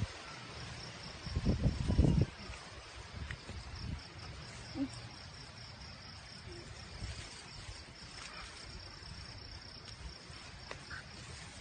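Insects chirring steadily in a high, even band outdoors. There is a brief burst of low rumbling noise on the microphone about one and a half seconds in.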